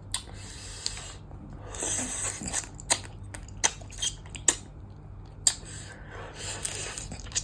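Close-miked eating sounds of blue crab som tam and fresh okra: crunching and chewing, with a string of sharp clicks and three longer crackly stretches.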